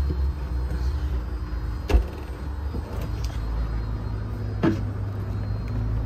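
Steady low mechanical hum of a boat's Mabru SC09VI inverter air-conditioning system and its seawater pump running at full speed. A sharp thump about two seconds in and a lighter knock near five seconds.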